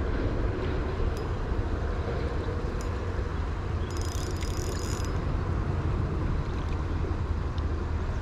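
Steady low rumble of wind and flowing river water, with a few faint clicks and a brief high hiss about four seconds in.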